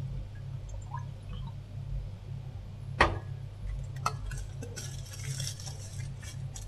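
A glass flask set down on a bench with a sharp clink about three seconds in, followed by aluminium foil crinkling as it is pressed over the mouth of a glass Erlenmeyer flask. A steady low hum runs underneath.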